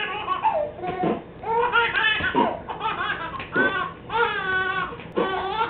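Baby laughing in a string of short, high-pitched bursts, one after another.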